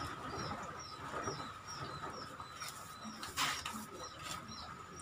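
A small bird chirping over and over, short high chirps about twice a second, against a faint steady hum. A single sharp knock sounds about three and a half seconds in.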